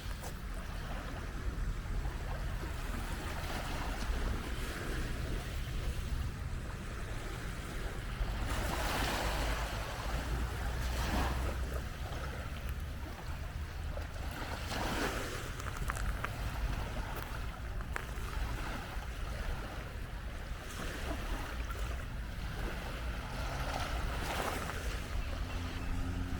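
Small waves breaking and washing up the beach, coming in several separate swells of surf. Wind buffets the microphone as a steady low rumble.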